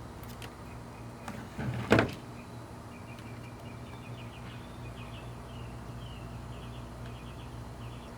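Wiring and plastic parts being handled in a car door, with one brief, loud scraping rub about two seconds in as the wire is pushed through the hole, over a steady low hum.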